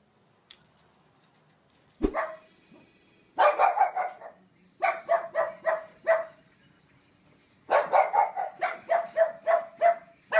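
A thump about two seconds in, then a pug barking in three runs of quick, sharp barks, about four a second.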